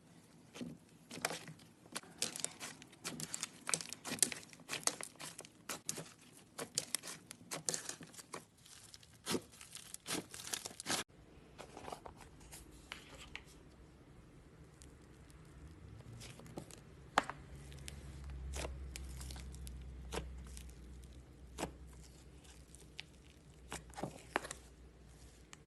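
Crunchy slime being squeezed and stretched by hand, giving dense crackling and popping for about the first half, then sparser pops. A low rumble rises and fades in the second half.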